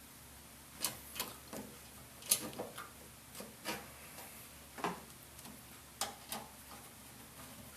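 Irregular clicks and light knocks of parts of an opened microwave being handled and fitted back together, about a dozen over the few seconds.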